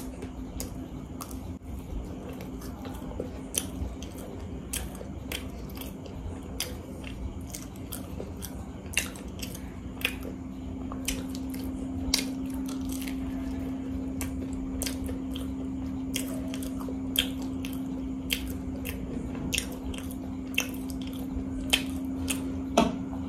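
Close-up eating of fried samosas: biting and chewing, with crisp pastry crunches and wet mouth smacks as irregular sharp clicks, one or two a second, over a steady low hum.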